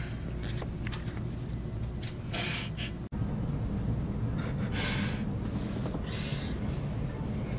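Three short, airy breaths from a person over a steady low room hum, with a brief drop-out in the sound about three seconds in.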